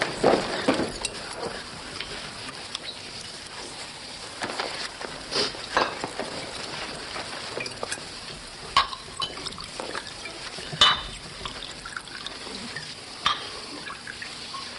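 Scattered light clinks and knocks of drinking glasses as drinks are poured and handed round, a few sharp chinks spread out over a faint background hiss.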